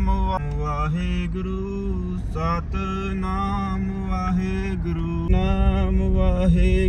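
Devotional chant-style singing by a man's voice, holding long notes that step up and down, with a low rumble of the moving vehicle underneath.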